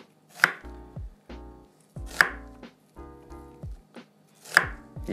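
A chef's knife chopping through an onion onto a wooden cutting board: three sharp cuts about two seconds apart, with softer cuts between them. Quiet background music plays underneath.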